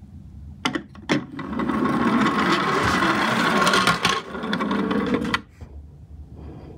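Two clicks as a plastic Tomica toy garbage truck is set down on a wooden board, then the rattle of its plastic wheels rolling down the board for about four seconds before it stops.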